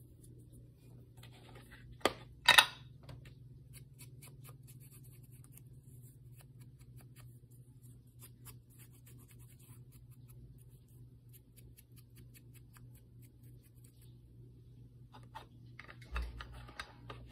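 Two sharp rips of thin paper about two seconds in as the edges of a small printed word strip are torn, then a long run of faint scratchy dabs as a foam ink blending tool is rubbed along the torn edges. A soft knock near the end as the tool is pressed onto an ink pad.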